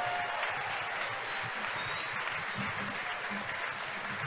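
A crowd applauding steadily, celebrating the rocket getting past maximum dynamic pressure.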